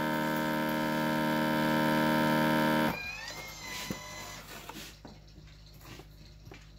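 Countertop vacuum sealer's pump drawing air through a hose from a jar-sealer attachment on a mason jar. It runs with a steady hum, then cuts off about three seconds in as the jar's vacuum is reached, with a short falling whine. Soft clicks and handling noise follow as the attachment is lifted off the jar.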